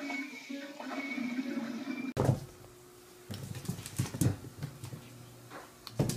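Video game music from a TV playing for about two seconds. It cuts off suddenly, followed by a scattering of soft knocks and thumps as a cat scrambles and rolls about on a carpeted floor.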